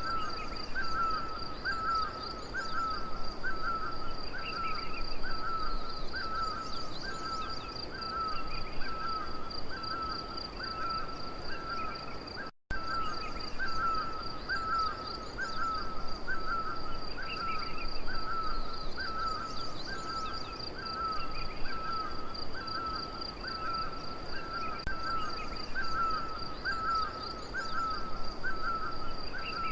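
Jungle ambience: a steady high-pitched drone under a chirping call repeated about one and a half times a second, with scattered bird calls over it. The whole soundscape cuts out for an instant about twelve and a half seconds in.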